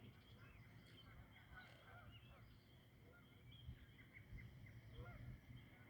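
Faint, distant geese honking in scattered short calls over quiet outdoor ambience.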